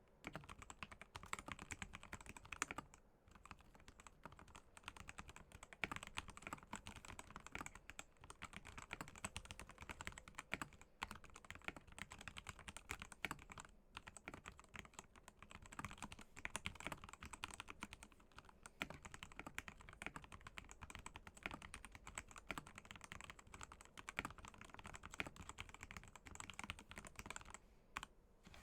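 Typing on an NJ80 mechanical keyboard with stock Gateron Yellow Pro linear switches, a brass plate, a tape mod and a noise absorber inside: a fast, steady run of keystrokes with a few short pauses, easing off near the end.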